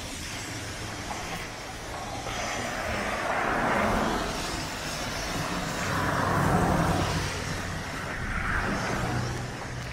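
Road traffic: cars passing one after another, the loudest passes about four seconds in and again between six and seven seconds in, over a steady low engine hum.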